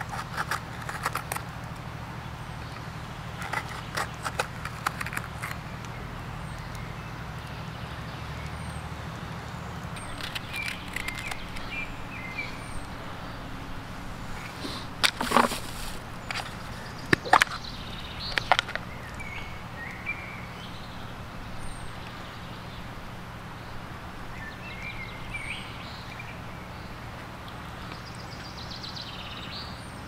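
Light handling sounds of food prep: scattered soft taps and clicks as pepper slices are laid on the pizza, with a few sharper plastic clacks about halfway through as a plastic food-box lid is handled. Small birds chirp now and then over a steady low background hum.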